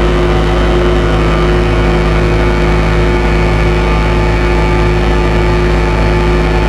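Colossus Audio "The Hum" drone instrument sounding a steady, loud dark drone. A deep rumble sits underneath, with several held tones stacked above it, through added reverb.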